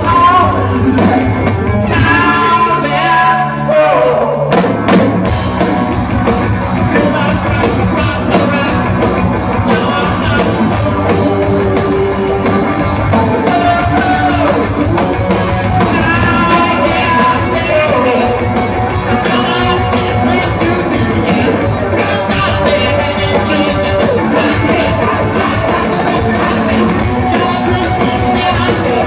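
A rock band playing live, heard from the audience: drum kit, guitar and a singer. The full band comes in with the drums about four to five seconds in.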